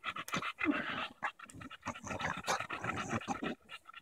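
English bulldog panting hard in a fast, steady run of short, noisy breaths.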